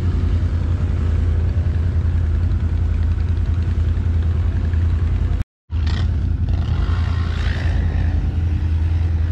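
ATV engine running steadily while riding, with a heavy low rumble throughout. The sound cuts out completely for a moment about five and a half seconds in.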